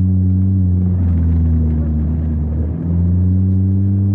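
Mazda MX-5's engine droning at steady revs, heard from inside the cabin, with a brief dip in level and pitch about three seconds in before it picks up again.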